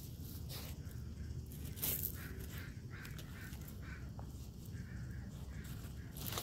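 Husky puppy digging and nosing in gravel: stones scratching and clicking under its paws and snout, with the sharpest click about two seconds in. A few short harsh bird calls sound in the background in the middle.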